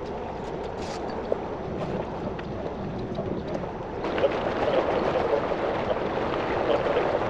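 A 50-year-old cabin cruiser under way at low speed as it leaves its slip: steady engine and water noise that grows louder and fuller about four seconds in.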